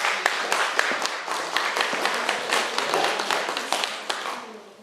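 Audience applauding: a dense patter of hand claps that dies away near the end.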